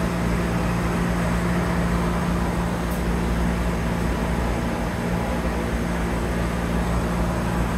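Steady mechanical drone of an underground bus tunnel, a constant low hum over rumble, from articulated buses standing at the platform with their engines and ventilation running.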